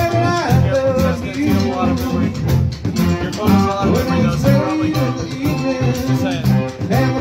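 Live band playing a song: a singer over guitar, with the drum kit keeping a steady beat.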